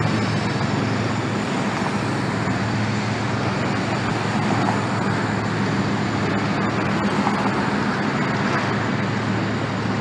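Steady rumble of a long freight train's boxcars and tank cars rolling across an elevated steel-truss railway bridge, mixed with city street traffic.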